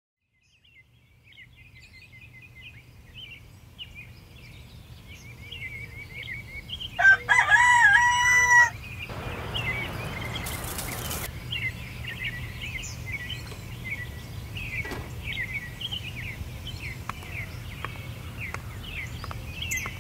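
Early-morning countryside birdsong: small birds chirping throughout, and a rooster crowing once, loudly, about seven seconds in for under two seconds. A short rushing noise follows, over a low steady rumble.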